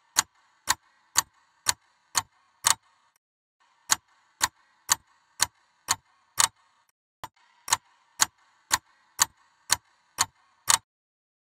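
Clock ticking steadily, two sharp ticks a second, in three runs with a short break about 3 s in and another about 7 s in.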